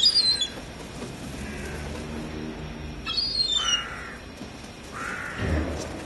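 Yellow-legged gulls squabbling and calling: short, sharp high calls that glide downward right at the start and again about three seconds in, with lower harsh calls around four and five seconds.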